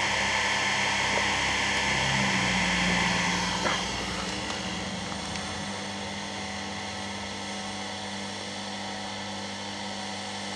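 Dishwasher pump motor running under power, its impeller blades already broken off, giving a steady electric hum with a hissing whine. About four seconds in it drops a little quieter and carries on.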